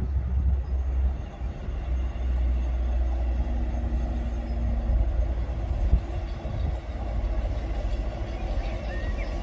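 A train running past on the line with a low, steady rumble, and a faint held tone in the middle.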